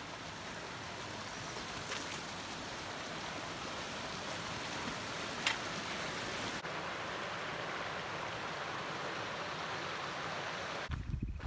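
Shallow creek water running over rocks, a steady rushing hiss, with one brief sharp click about five and a half seconds in.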